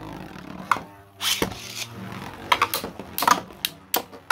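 Two 3D-printed Beyblade spinning tops whirring on the floor of a plastic Beyblade stadium, a steady hum broken by several sharp clacks as they strike each other and the stadium.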